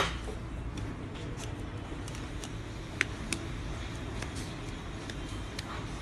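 Hands handling a roll of adhesive tape while fitting it to a tape dispenser: a few faint clicks and taps, with two sharper little clicks about three seconds in. A low steady hum runs underneath.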